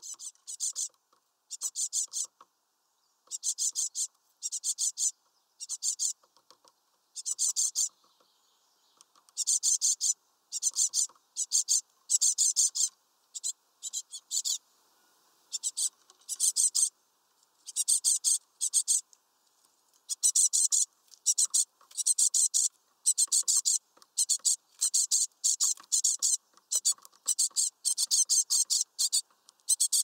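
Great tit fledglings begging: harsh, raspy, high-pitched calls in short bursts of rapid pulses, repeated about once a second and coming closer together in the second half.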